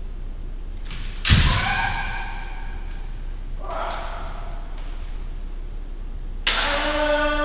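Kendo sparring: a bamboo shinai cracks against armour with a bare-foot stamp on the wooden floor about a second in, and again near the end, each strike carried by a drawn-out kiai shout; a shorter shout comes in between.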